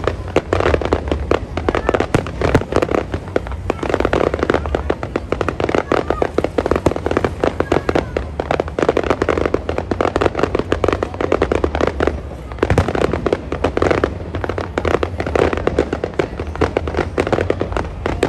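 Fireworks going off in a fast, unbroken barrage of bangs and crackles, with a brief lull about twelve seconds in.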